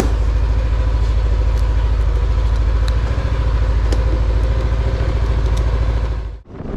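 Motor scooter engine idling steadily with an even low rumble. The sound cuts off abruptly near the end.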